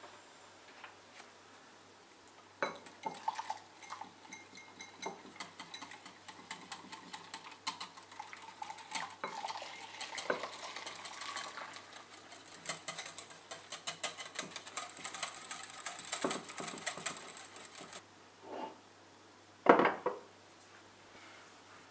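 Wire whisk clinking quickly against a glass bowl as hot milk is whisked into the egg yolk and sugar mixture for custard. A saucepan is set down with a single loud knock near the end.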